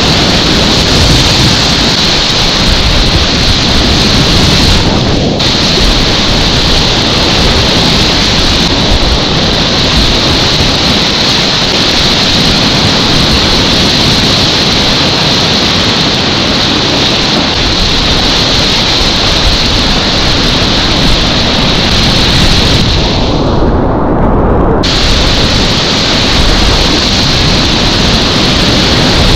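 Loud, steady rush of whitewater rapids close around a kayak, heard from a camera just above the water, with spray splashing over the microphone. The sound goes muffled for a moment about five seconds in, and again for about two seconds near the 23-second mark.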